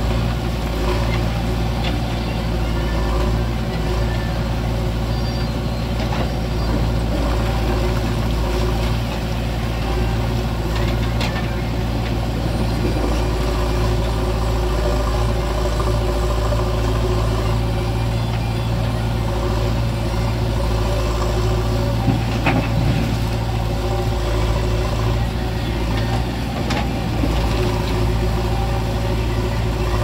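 Diesel engine of a JCB 3DX backhoe loader running steadily as the backhoe digs earth and loads it into a tractor trolley, with the tractor's engine running alongside. A few sharp knocks from the bucket and dropping rocks and soil come through, the loudest about two-thirds of the way in.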